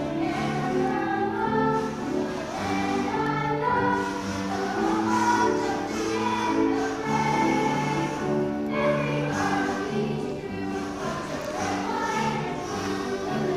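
Boys' choir singing, with sustained notes that change pitch from phrase to phrase.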